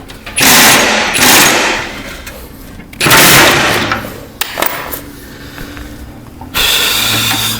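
A power tool run in three bursts of one to two seconds each, loud and rapid, the last carrying a steady whine, as bolts on the garden tractor's mower deck are worked.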